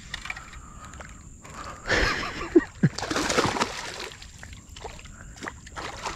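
River water splashing and sloshing at the surface where a ball of giant snakehead (toman) fry churns, with a sharp splash about two seconds in and a longer, louder churning burst about a second later.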